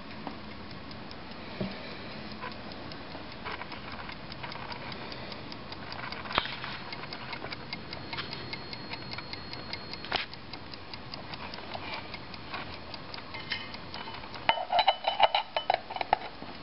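Swiss Buren mantel clock movement with a platform escapement, ticking quickly and evenly. Near the end its brass back door is handled, giving a burst of louder knocks and clatter.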